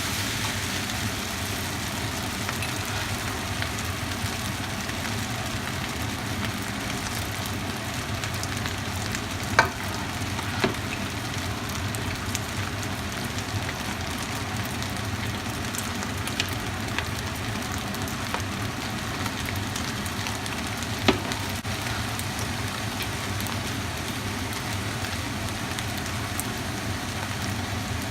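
Food sizzling as it is stir-fried in a pan, a steady frying hiss. Three sharp knocks stand out, two about ten seconds in and one about twenty-one seconds in.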